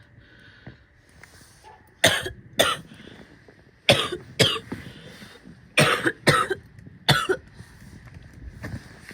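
A woman coughing hard in short bouts, mostly two coughs at a time: seven coughs in four bouts, starting about two seconds in.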